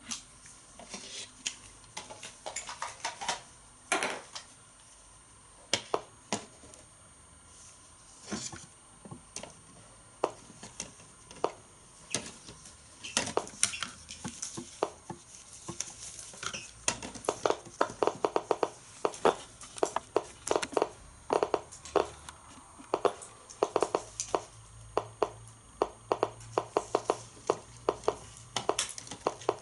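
DP-5VB radiometer clicking as it counts radiation from an isotopic smoke detector's radioactive source: sharp, irregular clicks, sparse at first and coming several a second in the second half as the count rises.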